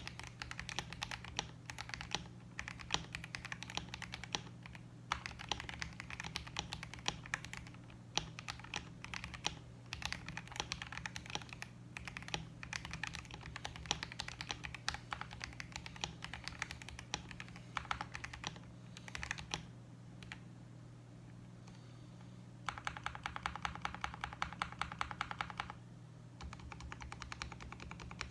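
Typing on a KBD67 Lite R3 mechanical keyboard with lubed KTT Panda linear switches and PBT keycaps, a steady stream of keystrokes. About two-thirds of the way through the typing stops for a couple of seconds, then comes a fast, even run of keystrokes before normal typing resumes.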